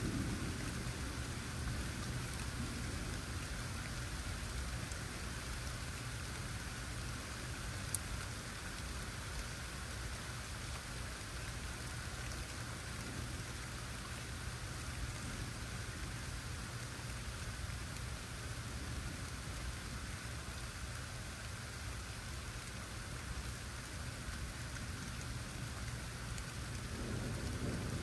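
Steady rain falling, over a continuous low rumble. There is a single sharp tick about eight seconds in, and the low rumble swells near the end as thunder builds.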